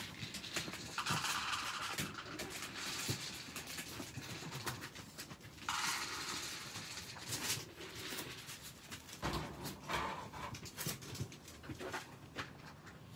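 Chihuahua panting and moving about in its wire crate, with two stretches of rustling and scattered small clicks.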